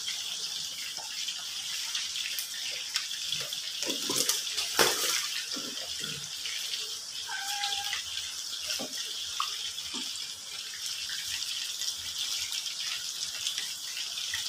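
A pot of soup at a hard boil on a gas stove: a steady bubbling, hissing wash. A few light knocks come about four to five seconds in.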